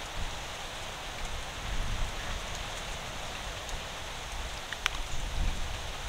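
Steady outdoor noise: an even hiss over a low, uneven rumble, with one sharp click about five seconds in.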